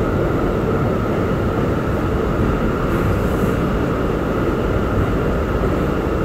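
R179 subway train running at speed through a tunnel, heard from inside the front car: a steady loud rumble of wheels on rails, with a faint steady high tone over it.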